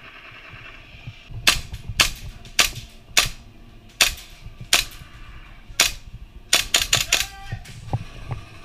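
Airsoft gun firing sharp single shots, about seven spaced half a second to a second apart, then a quick string of four or five shots near the end.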